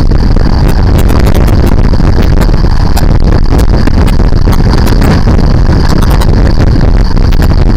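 Motorcycle riding at road speed, heard from a handlebar- or helmet-mounted camera: loud steady wind rumble on the microphone, with the engine running underneath.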